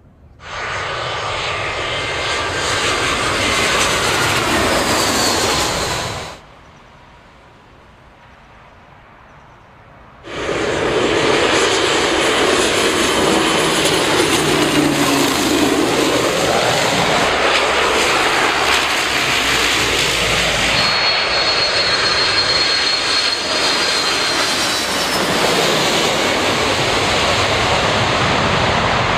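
Aircraft engine noise from several planes in turn. A jet's engines run at takeoff power for about six seconds, followed by a lull. A twin turboprop then passes low overhead, its pitch falling as it goes by. Near the end come the engines of a Boeing 747 approaching to land.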